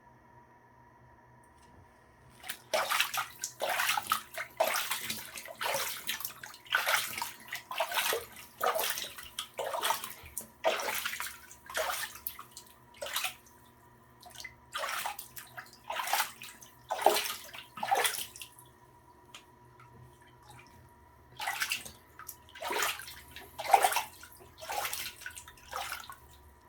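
Bath water in a small tub splashing and sloshing around a dog: short splashes roughly once or twice a second, starting a couple of seconds in, with a brief pause about two-thirds of the way through.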